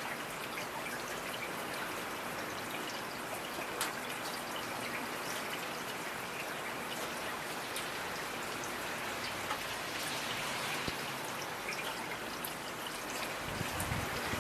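Steady rain falling, with single drops ticking now and then. A low rumble starts near the end.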